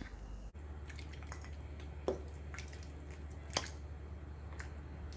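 A ladle scooping Vietnamese chicken curry from a stainless pot and pouring it into a bowl: faint drips and small splashes of broth, with two louder drops about two and three and a half seconds in. A low steady hum sits underneath.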